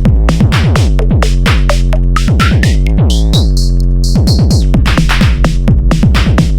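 Electronic background music with a steady drum-machine beat and synthesizer, with a rising synth sweep in the middle.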